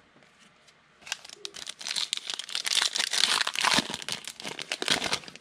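Foil wrapper of a football trading-card pack being torn open and crinkled by hand, a dense crackling that starts about a second in.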